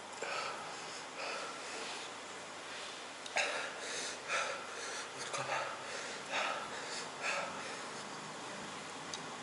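A person's short, hissing breaths and sniffs, coming every half second to a second from about three seconds in: sharp breathing of someone whose mouth is burning from extremely spicy noodles.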